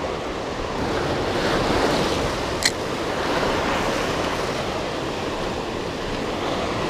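Sea surf washing over shoreline rocks, a steady rushing, with wind buffeting the microphone. A single short sharp click about two and a half seconds in.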